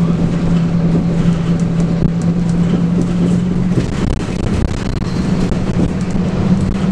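Scania K280UB bus's 9.3-litre five-cylinder diesel running under way, over steady road and running noise. Its low drone steps up a little in pitch about four seconds in.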